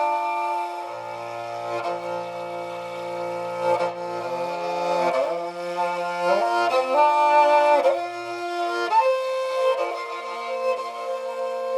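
Igil, a Tuvan two-stringed horsehead fiddle with a goatskin soundboard, bowed in a slow melody with slides between notes. A lower note sounds beneath the melody for much of the time, entering about a second in.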